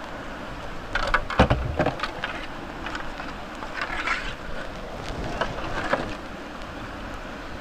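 Steady rush of white-water river, with knocks and scrapes from handling a plastic kayak and the camera close to the microphone. The knocks are clustered about a second in, again near four seconds and around six seconds.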